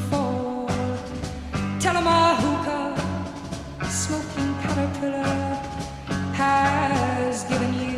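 Rock song playing: a steady drum beat under bass and electric guitar, with a sung melody line over the band.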